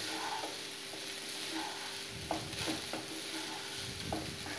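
Wooden spatula stirring and turning cooked rice with curry leaf powder in a non-stick pan on the heat, soft scraping with small clicks of the spatula on the pan, over a faint steady sizzle.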